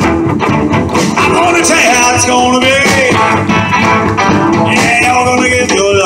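A live rock-and-roll band playing guitar and drums, with a melodic lead line that bends in pitch over the top.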